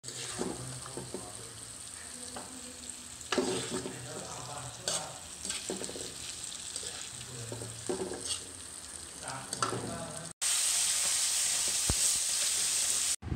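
Beef and masala frying in bubbling oil in a cast-iron karahi, sizzling steadily, with a few sharp knocks in the pan. About ten seconds in, the sound cuts to a louder, even hiss of the sizzle.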